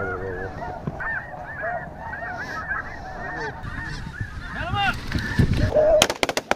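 Snow geese calling, a steady chorus of short, high honks. About six seconds in, a volley of shotgun fire breaks out, several quick shots close together.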